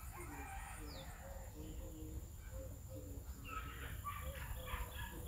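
Chickens clucking in short repeated calls, with small birds chirping: one quick falling chirp about a second in, and busier chirping from past the middle.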